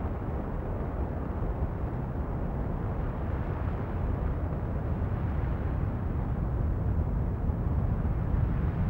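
A steady, low rumbling roar of noise that slowly grows louder.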